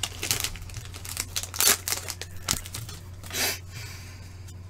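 Upper Deck hockey card pack wrapper crinkling and tearing in a few short bursts, the broadest about three and a half seconds in, over a faint steady low hum.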